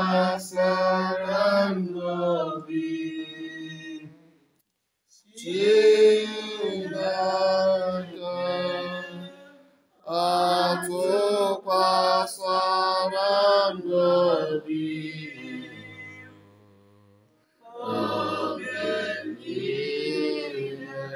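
Voices singing a chant-like religious song in four phrases of a few seconds each, with short pauses between them.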